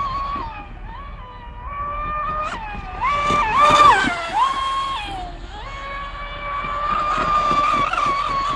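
Radio-controlled V-hull speedboat running at speed, its motor giving a high-pitched whine that drops in pitch several times as the throttle is eased and rises again as it is opened up. It is loudest about four seconds in as the boat passes close, with spray hissing.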